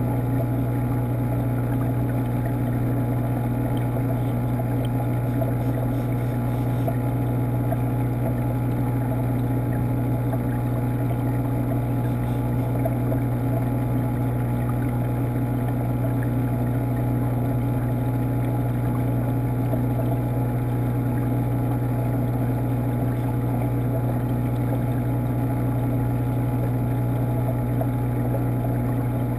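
Aquarium pump equipment running: a steady low hum with water-circulation noise, heard through a camera submerged in the tank.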